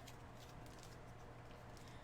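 Near silence: a low steady hum with a few faint soft ticks of trading cards being handled and flipped.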